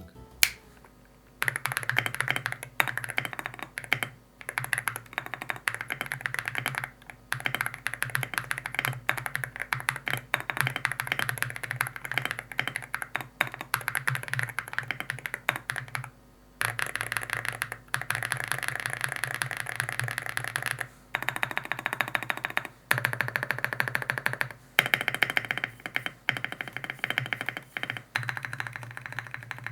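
Typing on an Akko 5098B mechanical keyboard, a plastic-cased, isolation-gasket-mounted board with Akko V3 Pro Piano switches and ASA-profile PBT/ABS double-shot keycaps. A fast, continuous run of keystrokes that sound low and flat, with a few short pauses.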